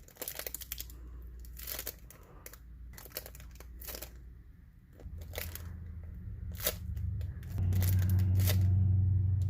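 A small homemade toast squishy being squeezed and released again and again, making crinkly, crunchy squishing sounds. A low hum builds in the second half and is the loudest thing near the end.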